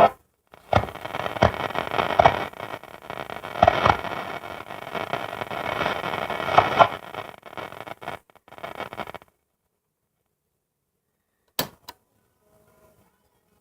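Blaupunkt Sultan radio's loudspeaker giving out crackling noise, with no clear music or voice, that cuts off suddenly after about nine seconds. Two sharp clicks come near the end.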